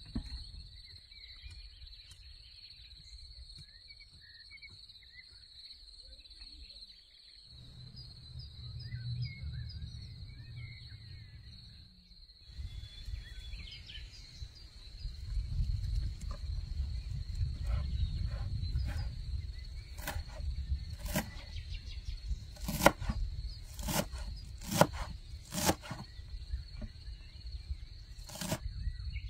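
Outdoor rural ambience: a steady high insect trill with a few faint chirps over a low rumble. In the second half a series of sharp knocks sounds, loudest and most frequent near the end.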